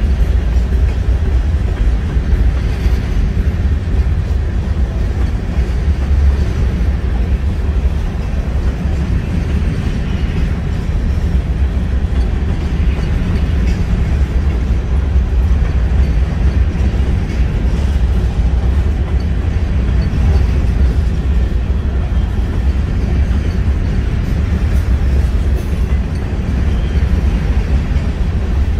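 Freight train of covered hopper cars rolling past, a steady low rumble of steel wheels on rail with no let-up.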